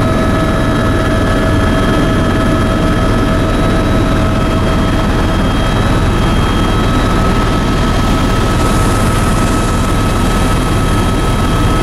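Helicopter in flight heard from inside its cabin: the steady, loud drone of the rotor and engine with a constant high whine over it.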